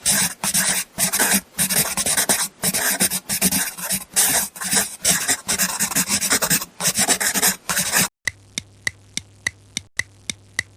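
Scribbling on paper: quick, rough back-and-forth strokes of drawing. About eight seconds in it gives way to a run of sharp ticks, about three a second, over a low hum.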